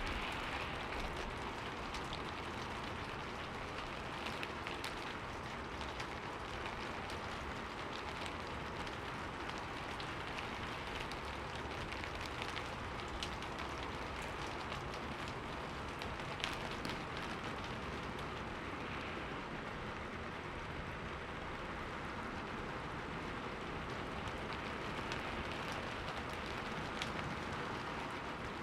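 Steady rain falling: an even hiss with many scattered, sharp drop ticks.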